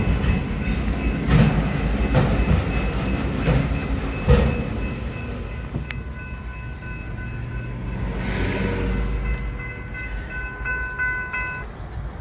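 Freight train railcars rolling past, wheels knocking over the rail joints above a steady rumble that eases off about halfway through. In the second half a few high, steady tones ring above the fading rumble.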